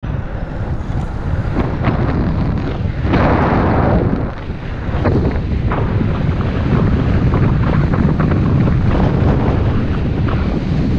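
Wind buffeting the microphone of a camera on a moving road bike, a loud low rush with many short knocks from bumps in the asphalt. The rush swells for about a second a third of the way in.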